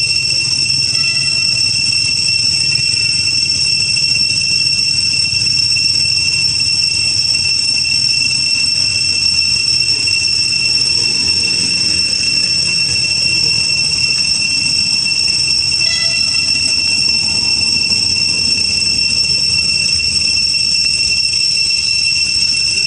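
Cicadas droning in a loud, steady, high-pitched chorus. Brief chirping calls cut through it about a second in and again about two-thirds of the way through.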